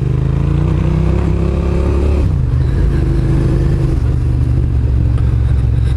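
Sport motorcycle's engine running under way, heard from the rider's seat. Its pitch climbs a little, drops about two seconds in, then holds steady.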